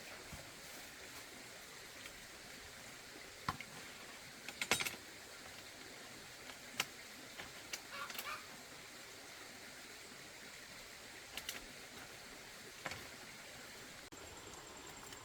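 A few scattered sharp clicks and light knocks over a faint steady hiss, with a thin high whine starting near the end.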